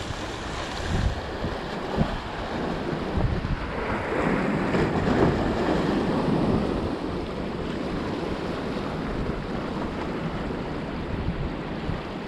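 Strong northeasterly wind buffeting the microphone over the wash of surf, a steady rushing noise that swells about four seconds in.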